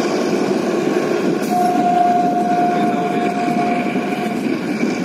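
Narrow-gauge toy train running, a steady rolling rumble, with a single steady tone held for about three seconds in the middle.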